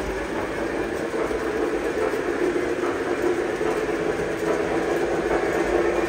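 Lionel model train running on its track: a steady rolling rumble with a constant hum from the locomotive.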